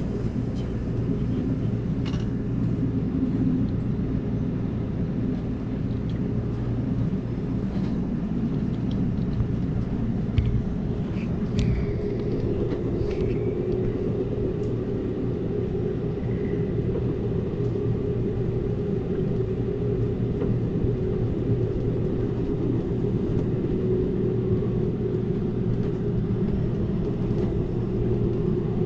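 Amtrak Cascades passenger train running at speed, heard from on board: a steady low rumble of wheels on the rails, with a few brief clicks and knocks around the middle.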